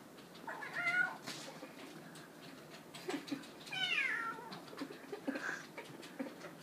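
Kitten meowing twice: a shorter call about a second in and a longer one around the middle that falls in pitch, with a few faint clicks between. These are a kitten's insistent meows at wanting to be let into the dishwasher.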